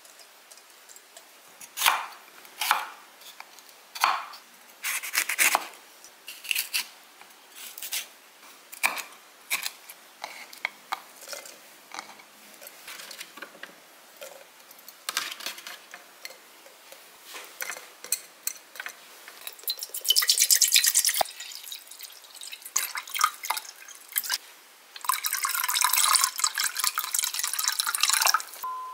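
Chopped pickling vegetables (cucumber, bell pepper and green chili pieces) dropped by hand into a glass jar, a long string of separate light knocks and clicks against glass and vegetables. A short rush of sound comes about two-thirds of the way in, and near the end water is poured into an enamel pot in a steady stream for the pickle brine.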